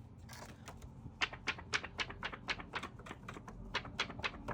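A quick run of light, sharp clicks and snaps, about four to five a second, from paper cash being handled and counted.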